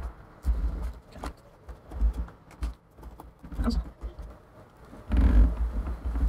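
Handling noises from working an iMac's display panel loose from its adhesive: scattered clicks and dull knocks along the glass edge, with a run of heavier bumps about five seconds in.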